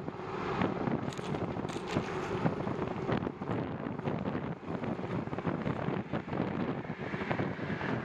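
Wind rushing and gusting over the microphone of a bicycle-mounted camera while riding in strong wind.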